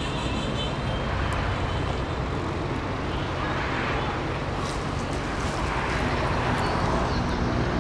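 Steady outdoor background noise with a low rumble, swelling a little now and then, with a few faint clicks past the middle.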